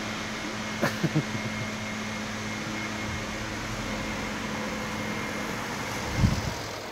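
Steady mechanical hum of an idling car, with a faint thin whine over it. Three quick knocks come about a second in, and a louder single thump comes near the end.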